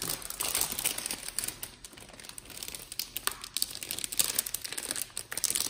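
Metallized anti-static bag crinkling as it is handled, a run of quick irregular crackles that is busiest at the start and over the last two seconds.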